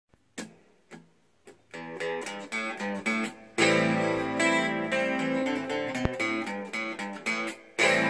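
Semi-hollow guitar playing a song intro: a few single plucked notes with gaps at first, then quicker picked notes, and from about three and a half seconds in, fuller strummed chords.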